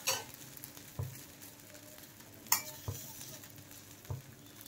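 Samo (barnyard millet) flour roti sizzling faintly on a hot, lightly oiled iron tawa, with a handful of sharp clicks scattered through the sizzle.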